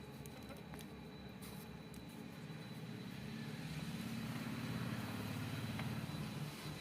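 A low rumble that swells from about three seconds in and fades near the end, with a faint steady high-pitched whine throughout.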